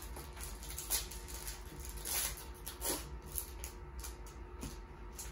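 Rustling and crinkling of a foil trading-card pack wrapper and cards being handled, a few short rustles.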